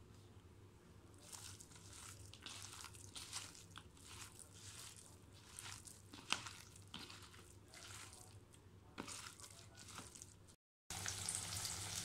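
Hands squishing and kneading a thick ground masoor dal batter with sliced onions in a bowl: faint, irregular wet squishes and rustles. Near the end, after a brief break, oil sizzles steadily as dal pakoras deep-fry in a kadai.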